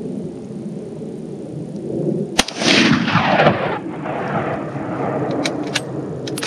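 A single shot from an old Mauser bolt-action rifle about two and a half seconds in: a sharp crack followed by a long rolling echo off the surrounding hills.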